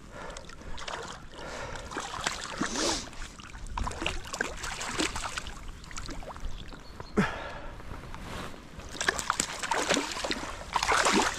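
Irregular splashing and sloshing of shallow seawater as a hooked sea trout thrashes at the surface, growing louder near the end as the fish is scooped into a landing net.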